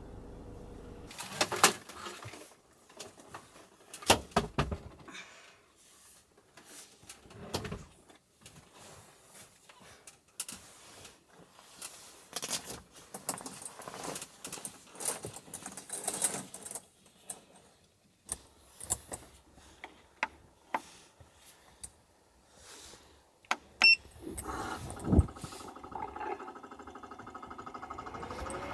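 Scattered clicks, knocks and rustling as someone moves about and handles things inside a Toyota Hiace camper van. A few seconds before the end a steady hum comes on. Right at the end a rising whine starts and grows louder as the van's engine and climate system are switched on.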